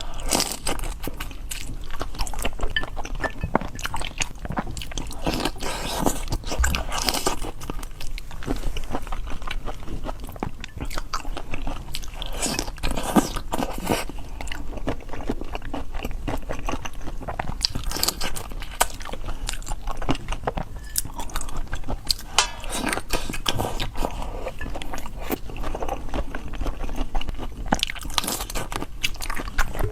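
A person biting and chewing crunchy food, with dense, irregular crunching throughout.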